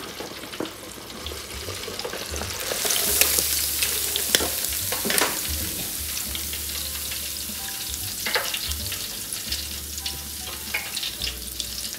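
Shrimp deep-frying in hot oil in a Farberware 4-litre electric deep fryer: steady sizzling with scattered sharp pops and crackles, getting louder about three seconds in. The popping comes from moisture left on the shrimp.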